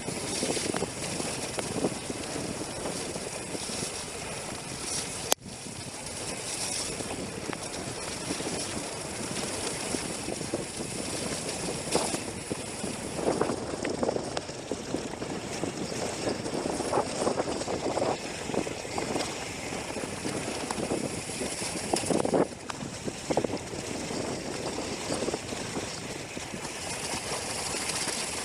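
Wind rushing over the microphone and tyres rumbling on a rough trail under a descending mountain bike, with irregular knocks and rattles from the bike over rocks.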